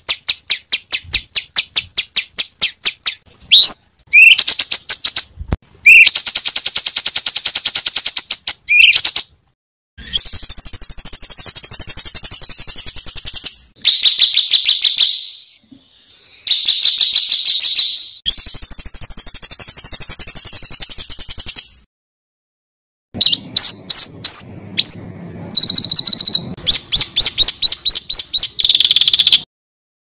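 Songbird calls spliced into a masteran (tutor) recording of 'tembakan kasar': harsh, rapid-fire runs of high chattering notes. Each run lasts one to four seconds, with short silent gaps between them.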